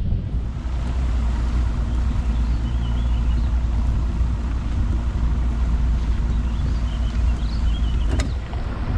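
Bass boat's motor running steadily at low speed, a constant low rumble with a steady hum.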